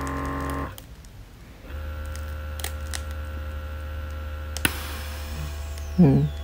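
Zespa wireless knee massager running with a steady electric hum from its vibration motor. The hum cuts out shortly after the start and starts again about a second later, as the automatic program changes. There is a sharp click past the middle and a brief loud low sound near the end.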